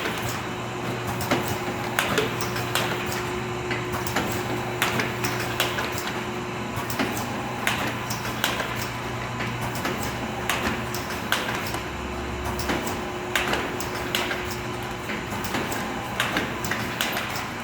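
DH-700-2 ice pack packaging machine running: a steady hum under frequent, irregular clicks and knocks from its mechanism.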